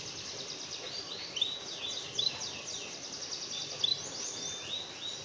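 A small songbird calling with a run of high, quick downward-sweeping chirps, a few notes sharper and louder than the rest, over a faint steady hiss.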